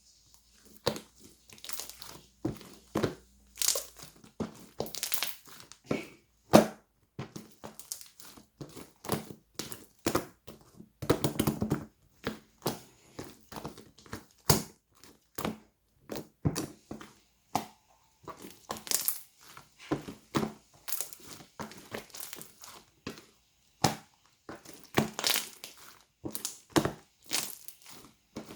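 Repeated crunching and crinkling: an irregular string of sharp crackles, one to three a second, some coming in quick clusters.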